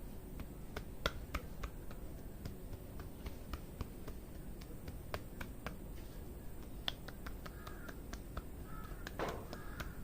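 Sharp, irregular snaps and crackles of hair cracking during a head massage, strands of oiled hair pulled and twisted between the fingers so they crack, a few dozen in all. A bird calls several times near the end.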